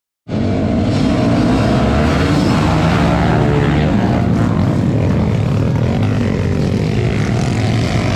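Several motocross dirt bikes revving and riding, their engines rising and falling in pitch as they accelerate and pass. The sound cuts in after a moment of silence at the very start.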